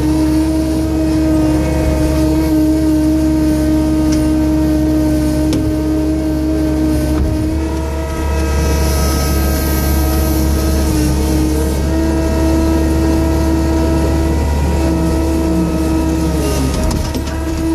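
Tractor engine running at a steady speed while dragging a log chained under its rear hitch, with a steady hum and a low rumble throughout. A hiss rises over it for a few seconds about eight seconds in.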